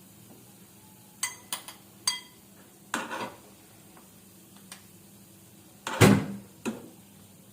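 Metal spoon knocking against metal cookware: three short ringing clinks about a second in, a brief scrape, then a louder clank and a smaller knock near the end.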